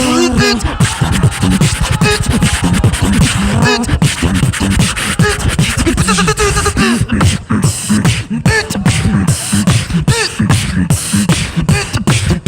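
Tag-team beatboxing: a held sung tone for the first half second, then a dense, fast run of vocal kick drums, snares, hi-hat clicks and bass sounds.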